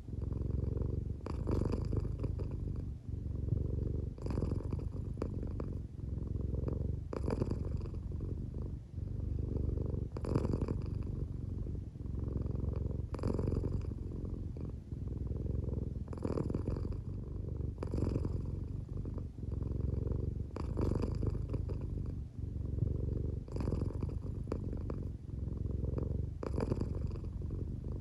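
American Shorthair cat purring steadily while half asleep, the purr swelling and easing with each breath about every three seconds; drowsy, close-to-sleep purring that the owner thinks may be partly snoring.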